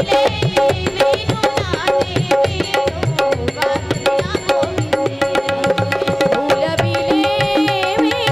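Devotional instrumental music: tabla drumming in a quick, steady rhythm under held melody notes.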